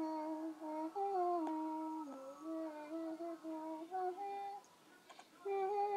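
A person humming a tune in held notes that step up and down, pausing briefly about five seconds in.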